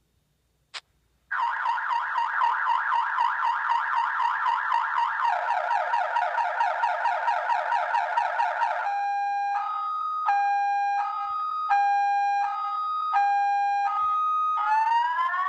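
Viper car alarm siren sounding in full panic mode. A short chirp comes first, then the siren cycles through its tones: a rapid warble, a slow high-low two-tone alternating about every 0.7 s, and rising whoops near the end.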